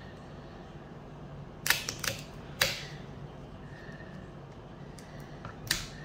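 Small knife scoring crosses into chestnut shells: sharp clicks and cracks as the blade cuts into the hard shell, a quick cluster of about four around two seconds in and one more near the end.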